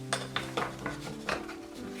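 Background music over a string of light knocks and clicks, several in two seconds, from a kerfed MDF panel being pressed and bent around a rounded box corner.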